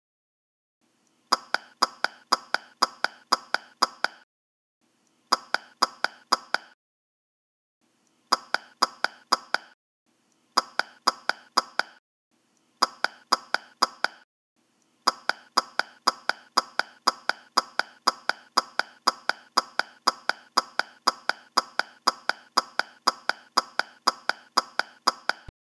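A short, pitched tapping sound effect repeated quickly, about five taps a second, in runs of one to three seconds broken by dead silences, with one long unbroken run near the end.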